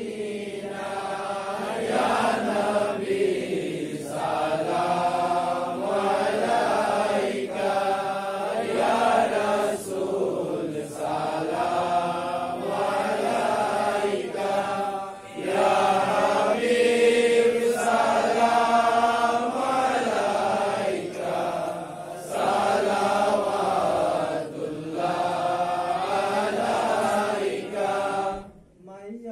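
A Bengali Islamic devotional song about Medina, sung in a slow, drawn-out chant with long held notes. The singing drops away briefly near the end.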